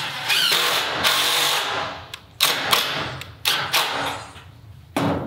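Cordless drill driving long roofing screws through metal roofing tin into wooden rafters: one long run of about a second and a half, then several short bursts.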